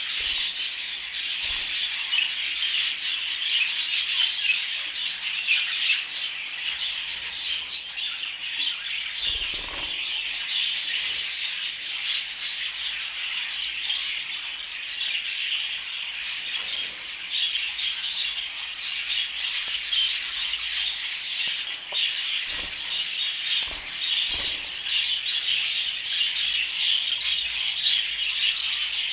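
Budgerigar chattering and warbling without a break, a dense run of high chirps, clicks and squeaks, with a few soft low thumps.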